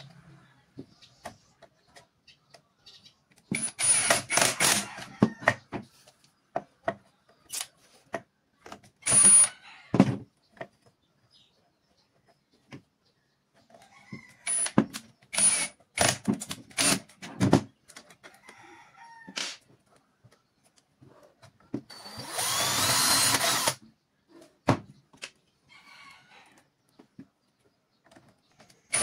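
Cordless impact driver driving screws into a pine board: four spells of motor whine and rapid hammering. Between them are short trigger pulses, and near the end comes one longer run of about two seconds.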